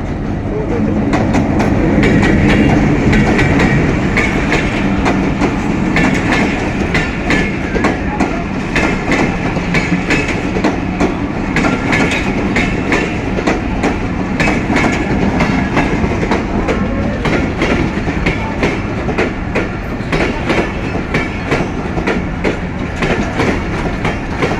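Diesel-hauled passenger train passing, its coaches' wheels clattering rhythmically over rail joints. A low engine drone is loudest in the first few seconds.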